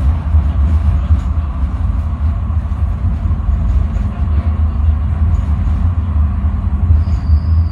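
Coastal tram running along street track, heard from inside the front of the car: a steady low rumble of motors and wheels on the rails. A thin, high steady tone comes in near the end.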